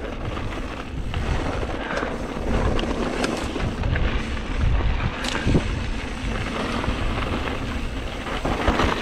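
Wind rushing over the microphone of a mountain bike riding down dry, rocky dirt singletrack, with tyres on loose dirt and a few sharp knocks as the bike goes over rocks.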